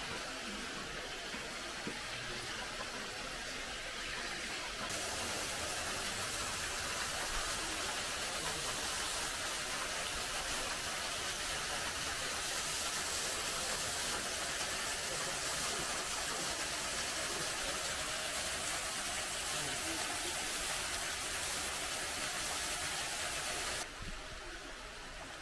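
Steady rush of running water cascading over rocks. It gets louder about five seconds in and drops back shortly before the end.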